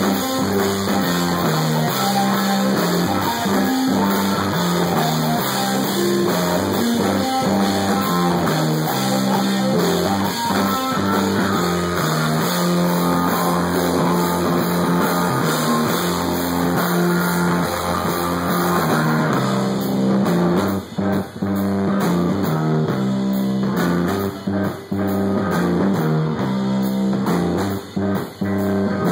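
Stoner-metal rock band playing live: electric guitar over a drum kit, loud and continuous. In the last third the band stops short for a moment several times, the music cutting out and coming straight back.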